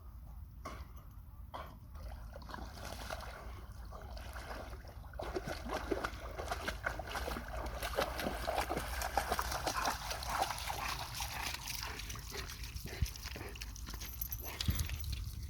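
Water splashing and sloshing as a dog moves about in lake water, becoming denser and louder from about five seconds in.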